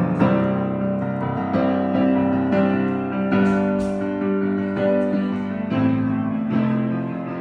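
Piano music: a steady run of held notes and chords, new ones struck about every half second.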